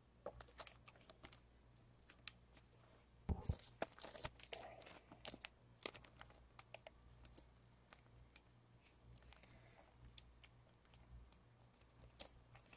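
Faint clicks and crinkling of 2015 Topps Chrome trading cards being handled and shuffled, with a soft thump about three seconds in.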